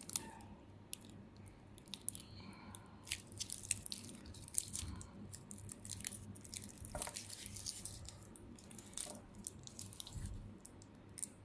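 Stainless steel watch bracelet being handled: faint, irregular small clicks and rattles of the metal links.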